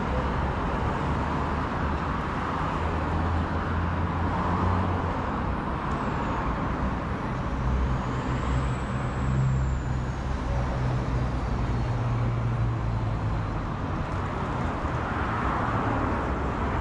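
City street traffic: cars driving along an avenue, a steady mix of engine hum and tyre noise.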